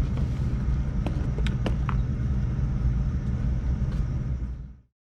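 Gas furnace running in heat mode with its newly replaced blower motor and wheel, a steady low rumble and hum with a few faint clicks, cutting off abruptly near the end.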